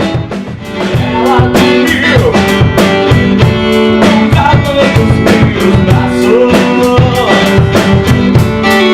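Band music with drum kit, guitar and a singing voice over a steady beat.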